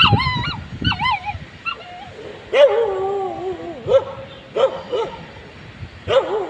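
Puppy whimpering in high-pitched cries that waver up and down, then lower, longer whines and short yelps, a few times over.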